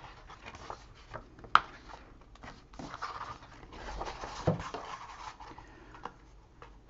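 Small scissors snipping off the ends of double-sided tape strips, a handful of short sharp snips, the loudest about a second and a half in. Between the snips, card and paper rustle as the notebook cover is lifted and turned.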